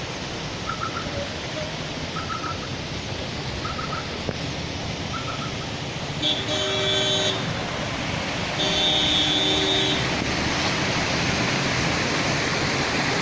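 Heavy rain falls with a steady hiss. A vehicle horn honks twice, for about a second each time, about six and nine seconds in. Earlier, faint short triple chirps repeat roughly every second and a half.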